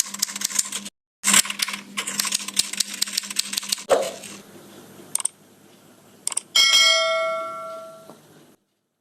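A fast run of mechanical clicking over a steady hum, broken briefly about a second in and stopping with a thump about four seconds in. Near the end a single bell-like ding rings out and dies away over about two seconds, then the sound cuts to silence.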